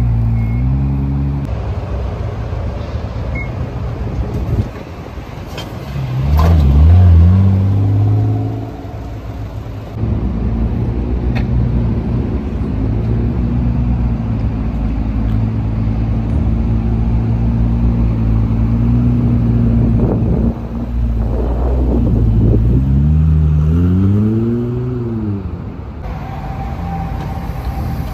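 Car engines running low and steady, with a loud rev that climbs and falls back about six to eight seconds in, and another rise and fall in engine pitch near the end.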